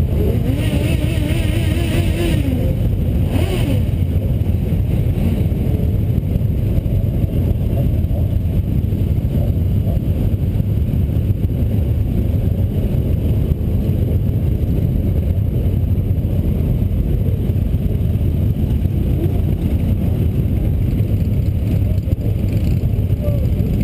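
Many motorcycle engines running together at idle in a large group of bikes, a steady low drone.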